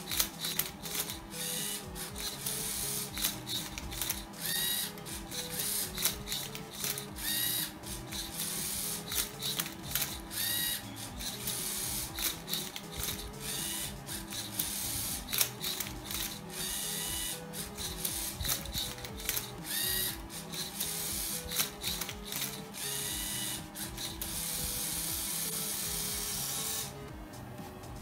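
LEGO EV3 MindCuber robot's motors whirring and its flipper and turntable clacking as they turn and flip a Rubik's cube. Short rising motor whines come every few seconds, and the mechanical noise stops about a second before the end. Background music with a stepping melody plays underneath.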